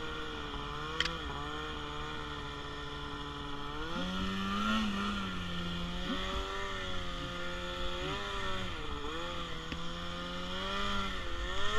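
Snowmobile engine running with the throttle repeatedly opened and eased off, its pitch rising and falling several times. There is a brief sharp click about a second in.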